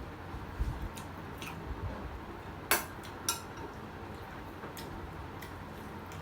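Eating sounds at a meal of fish curry: scattered soft clicks and taps of food and tableware, with two sharper clicks near the middle, over a steady low background.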